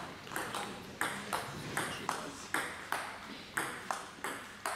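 Table tennis ball in a fast rally: a run of sharp clicks, two or three a second, as the ball bounces on the table and is struck by the bats in turn.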